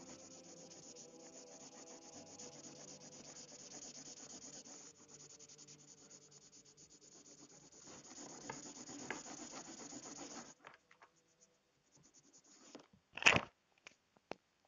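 Felt-tip marker scratching and rubbing on paper with rapid back-and-forth colouring strokes, stopping about ten and a half seconds in. Near the end comes a single sharp knock, the loudest sound, then a lighter tap.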